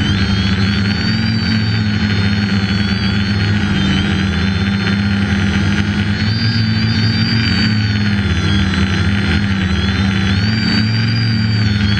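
SK450 quadcopter in flight, its four Sunnysky X2212 980 kV brushless motors spinning Graupner 10x5 propellers, heard close up from its onboard camera. A loud, steady propeller drone with a high motor whine that wavers slightly in pitch as the throttle changes.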